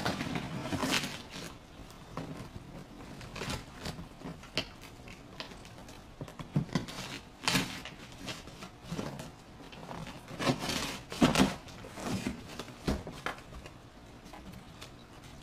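A cardboard shipping box being opened: a blade slitting the packing tape, then the cardboard flaps and packing paper scraping and rustling, in irregular tearing and scraping noises.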